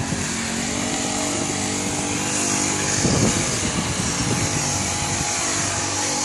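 Small pocket bike engine running steadily as the mini motorcycle rides away down the street.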